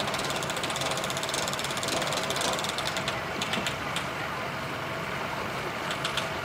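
A boat trailer's winch ratchet clicking fast and evenly as the boat is cranked up onto the trailer, then a few single clicks. A vehicle engine idles steadily underneath.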